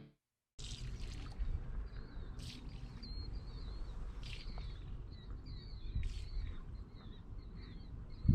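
Small birds chirping in quick, short twittering calls over a steady low rumble, with a few brief rustles.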